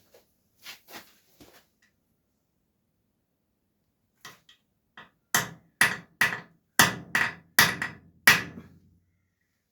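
Hammer striking a punch on a sheared steel bolt to mark a starting point for drilling it out. A few light taps, then about eight sharp metallic blows in quick succession, each with a short ring.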